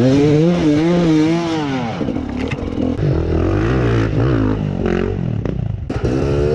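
Off-road dirt bike engines revving, their pitch rising and falling again and again as the bikes are worked through a muddy creek, with the wheels splashing through the water.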